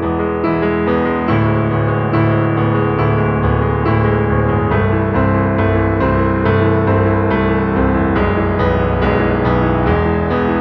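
Background music led by piano, notes struck in a steady rhythm.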